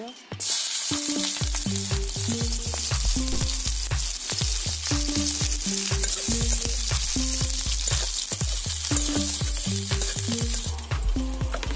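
Sliced onions sizzling in hot oil in an iron wok, starting with a loud hiss as they hit the oil about half a second in and frying steadily while they are stirred with a metal spatula; the sizzle cuts off sharply near the end. Background music with a bass line plays underneath.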